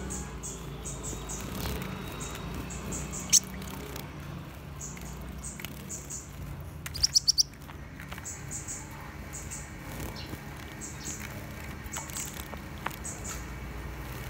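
Caged sunbirds giving short, high chirps, repeated irregularly, with one louder chirp about three seconds in and a quick run of four loud notes about halfway through.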